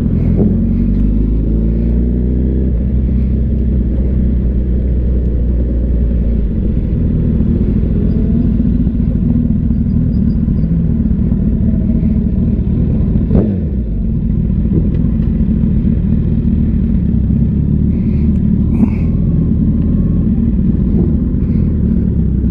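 Sport motorcycle's engine running while riding slowly. Its pitch climbs over the first couple of seconds, then holds fairly steady, with one quick drop in pitch about halfway through.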